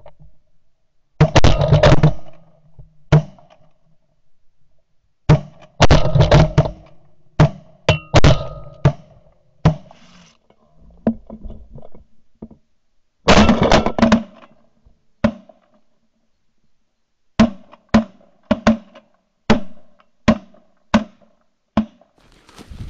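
A series of loud, heavy thuds: several dense clusters of rapid hits in the first half, then single hits spaced roughly half a second to a second apart near the end.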